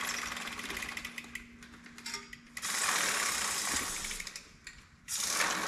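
Dirt bike drive chain clicking rapidly over the sprockets as the rear wheel is turned by hand. Then two loud hissing bursts of aerosol chain lube are sprayed onto the chain, the first about halfway through and the second near the end.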